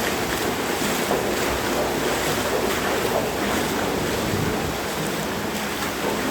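Steady rush of floodwater, with wind noise on the microphone.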